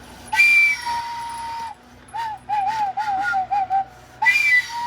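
Recorder flute blown shrilly: a long high note with a breathy, overblown start, then a run of short wavering notes, then another long breathy note starting near the end.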